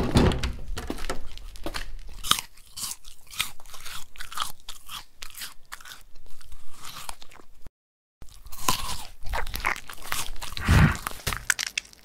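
Crunchy toast being bitten and chewed close to a microphone, ASMR-style, with dense irregular crackles. A short dead break comes just before the middle, and louder bites follow near the end.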